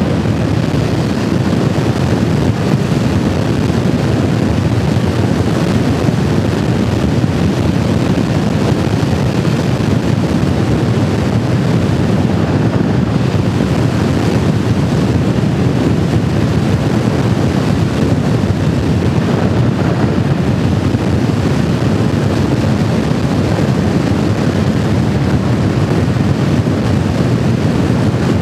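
2004 Harley-Davidson Fat Boy cruising at steady speed: a constant rush of wind on the microphone over the bike's engine and road noise, without let-up.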